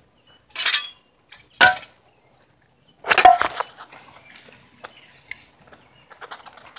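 Broken metal parts of a homemade mud motor knocking against each other and the wire rack as they are handled: three sharp clanks in the first few seconds, the last ringing briefly, then a few faint clicks.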